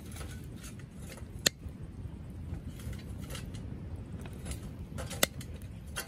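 Wood fire burning in a stainless steel Solo Stove Campfire fire pit, a steady low rumble with faint crackles, and two sharp metallic clicks about a second and a half in and about five seconds in as metal fire tongs set a split log into the stove.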